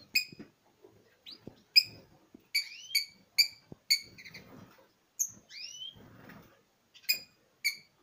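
Small caged finches calling: sharp chirps, a quick run of them around the middle and two more near the end, mixed with short rising whistles.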